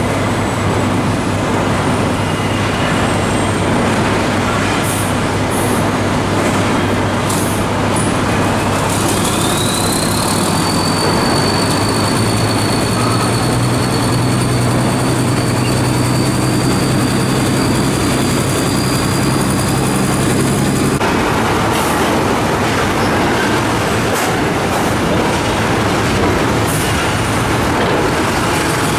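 HOWO dump truck diesel engines running steadily. About ten seconds in, a high whine rises and holds while the engine note climbs, then both drop away abruptly about two-thirds through.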